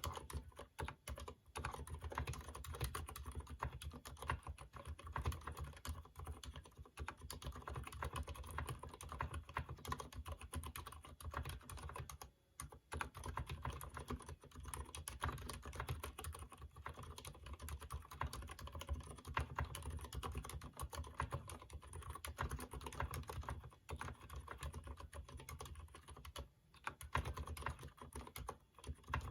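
Continuous fast typing on a keyboard with Cherry MX Silent Red linear switches, not yet lubricated: a dense run of soft, muted keystroke clicks with a short pause about twelve seconds in.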